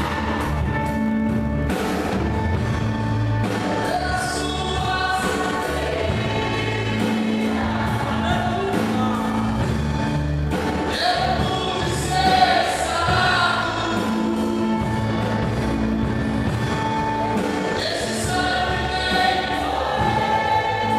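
A choir singing a gospel praise song over steady instrumental accompaniment, the voices entering about four seconds in and singing in phrases.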